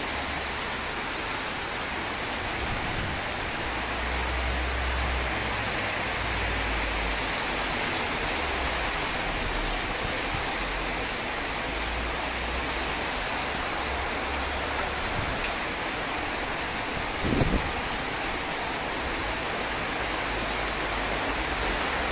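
Heavy storm rain falling steadily with an even hiss, while gusts of wind buffet the microphone in uneven low rumbles. A single brief thump comes about three quarters of the way through.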